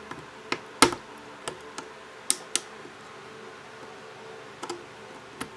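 Small repair tool clicking and tapping against a smartphone's internal parts as the bottom bracket is pried out. The clicks are sharp and irregular, the loudest a little under a second in.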